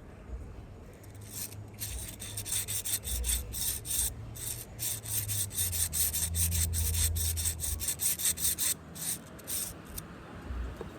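Fidget toy being worked by hand close to the microphone: a fast, irregular run of short scratchy rubbing strokes. It starts about a second and a half in and stops shortly before the end.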